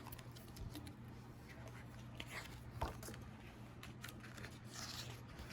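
Quiet room tone with a low steady hum, broken by a few faint rustles and light clicks of handling.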